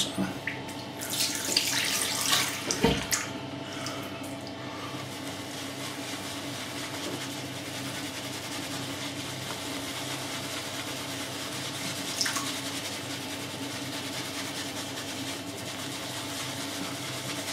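Bathroom tap running into a sink, loudest for about two seconds near the start, with a single knock about three seconds in; then a steady, fainter hiss with a low hum.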